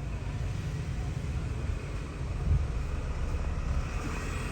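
Steady low rumble of background noise with a faint hiss and no distinct event.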